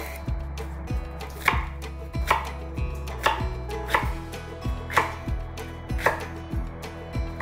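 A chef's knife slicing through peeled taro stems (bạc hà) onto a wooden cutting board: about six crisp knocks, roughly one a second.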